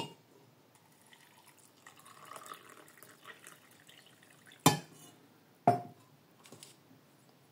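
Boiling water poured from an enamel jug into a ceramic mug of mint leaves, a faint trickle for a second or two. Then two sharp knocks about a second apart as the jug is set back down on the wooden board.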